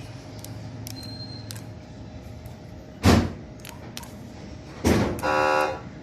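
Code 3 electronic police siren on test through its speaker: a loud pop about three seconds in, then another pop near the end followed by a short steady horn-like buzz lasting under a second, over a faint hum.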